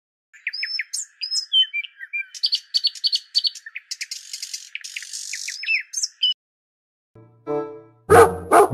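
A small bird chirping and twittering in quick, high, sliding notes for about six seconds, then falling quiet. Near the end a low hum and a few loud, sharp sounds begin.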